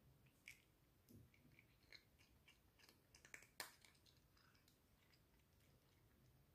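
Russian Blue cat chewing dry treats taken from a hand: a run of faint, crisp crunches over about four seconds, the loudest about three and a half seconds in.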